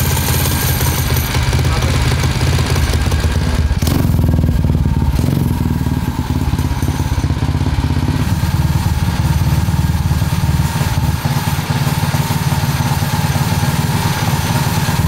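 Tillotson 225 single-cylinder racing engine in a motorcycle frame, running steadily on its first runs after the swap.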